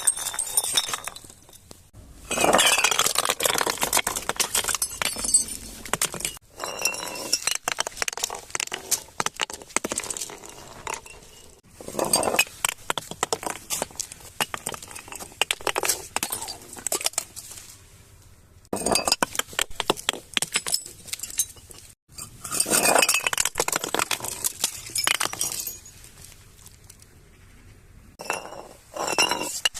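Glass bottles breaking and glass clinking and crunching in a run of dense bursts a few seconds long, with short pauses between them.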